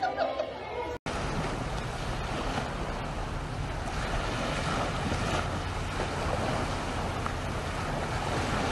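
Steady rush of sea waves mixed with wind on the microphone, starting abruptly about a second in.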